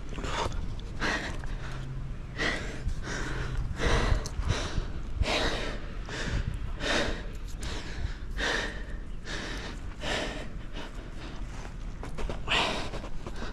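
A man breathing hard and fast, one loud breath about every three-quarters of a second, winded from the effort of climbing down a tree.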